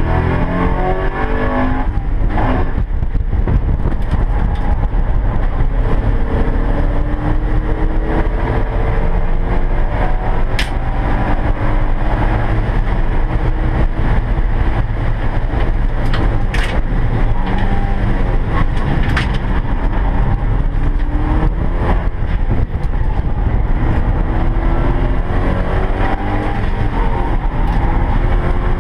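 Porsche 944 race car's four-cylinder engine heard from inside the stripped cockpit, revving up hard through several upshifts as the car accelerates to about 75 mph, easing off for a braking zone, then pulling up in revs again near the end. A few short sharp clicks cut through the engine noise.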